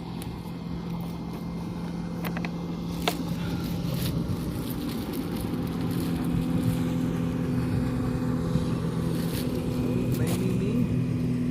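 A motorboat's engine running steadily, growing louder and stepping up in pitch about halfway through, with a few sharp clicks over it.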